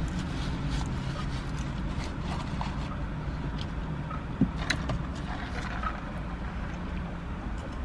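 Steady low hum inside a parked car's cabin, with light handling noises from food and napkins: scattered small clicks and one sharper click a little past halfway.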